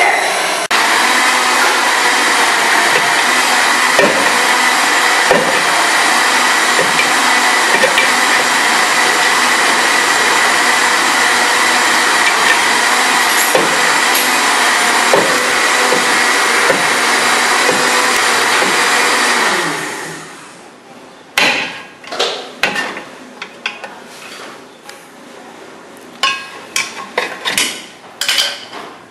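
Handheld gas torch flame hissing steadily for about twenty seconds while it heats a seized rear drum brake to free it. The flame then stops, and a few sharp metal knocks and taps on the drum follow.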